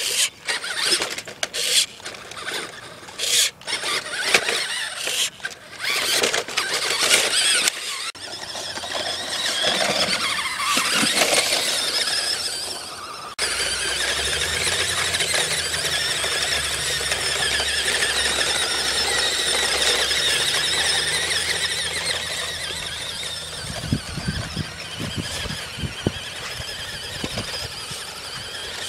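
Electric motor and gearbox of a RadioShack Toyota Tundra radio-controlled truck whining. First come short stop-start bursts as it crawls over rocks, then from about thirteen seconds in a steady high whine as it drives across grass. A few knocks come near the end.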